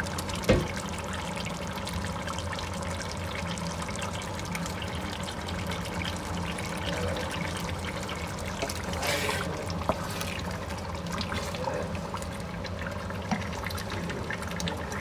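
Tomato sauce and fresh tomato frying in oil in a pot on high heat, a steady sizzle and bubbling crackle, with a brief louder rush about nine seconds in.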